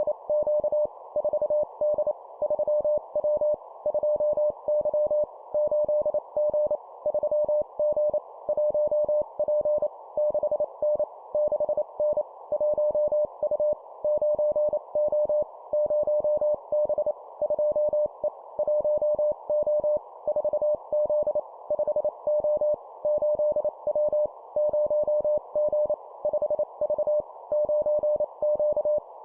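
Morse code (CW) tone sent at 25 words per minute: a single steady pitch keyed in quick dots and dashes, spelling two-character groups of numbers and letters, each group followed by a short pause.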